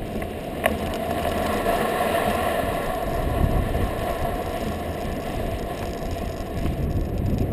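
Kite buggy running fast over hard beach sand: a steady rush of wind and rumble from the balloon tyres on the buggy-mounted microphone, with a faint steady hum over it. There is one sharp click under a second in.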